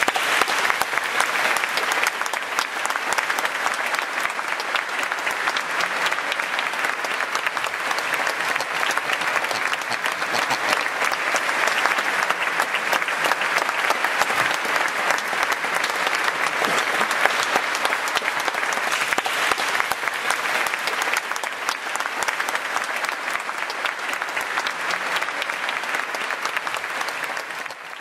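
Audience applauding steadily in a large church, breaking out all at once as the organ piece ends and cut off abruptly at the end.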